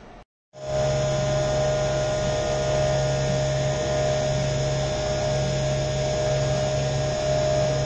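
CNC mill's spindle and end mill cutting a 6082 aluminium block under flood coolant: a steady high tone over the hiss of the coolant spray, starting abruptly about half a second in. This is the machining of the part's tall outer wall.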